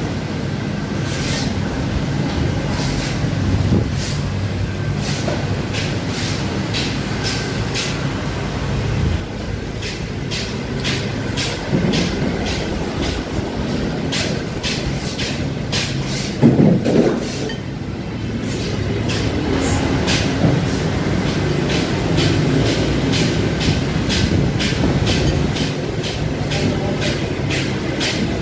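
Spoons and forks clinking and scraping on plates in many small irregular clicks, over a steady low rumble of background noise.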